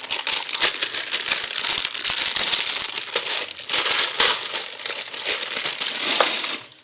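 Packaging of a toy blender crinkling and crackling continuously as it is handled and opened by hand, stopping abruptly near the end.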